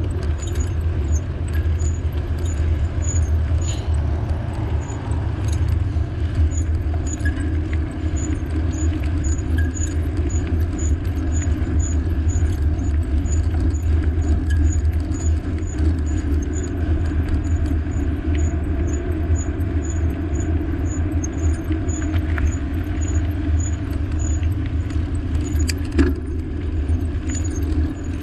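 Continuous low rumble of a moving bike on the road, wind and tyre noise, with a faint high tick repeating a little under twice a second. A single sharp click comes near the end.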